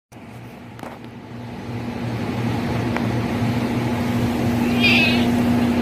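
A steady motor hum with a low pulsing drone, growing gradually louder, and a short high-pitched call about five seconds in.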